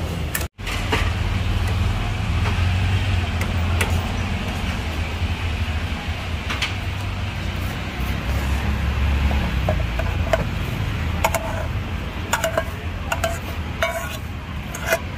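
Metal ladle clinking and scraping against cooking pots, with a run of sharp, short-ringing clinks in the last five seconds, over a steady low rumble.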